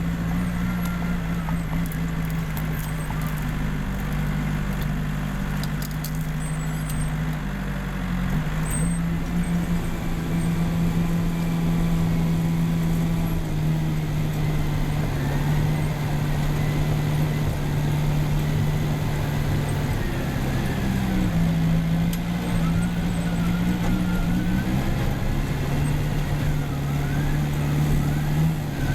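Case 550G crawler dozer's diesel engine running steadily under working load, its pitch dipping and rising slightly a few times. Faint wavering squeals come in over the engine in the second half.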